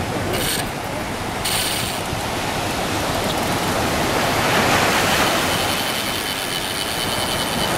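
Surf-casting reel clicking rapidly, in two short runs and then a longer one from about halfway, over the steady wash of surf: a fish is on the line.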